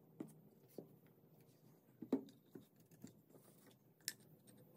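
Light clicks and knocks of small wooden parts being handled and shifted on a table, about six in all, the loudest about two seconds in.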